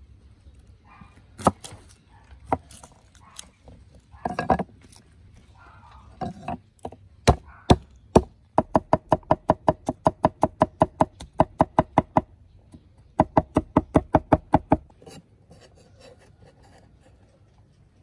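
Knife chopping food on a cutting board: a few separate knocks, then two quick runs of even strokes at about five a second. The first run lasts nearly four seconds, the second under two.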